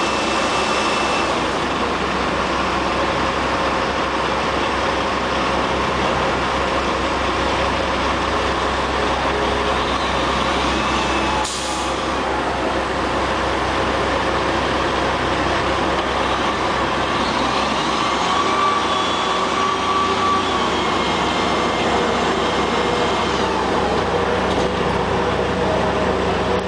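Heavy diesel truck engine running steadily, with a brief hiss of air about eleven and a half seconds in.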